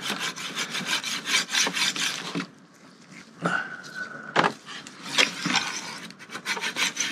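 Linear rail carriage being slid quickly back and forth along its steel rail while soaking in mineral spirits to flush out the shipping grease, making a rapid run of rasping strokes. The strokes stop for a moment about a third of the way in, where a short steady tone sounds, then start again.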